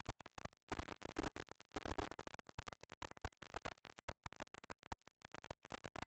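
Irregular crackling noise that cuts in and out rapidly, from wind and blowing snow striking a trail camera and its microphone.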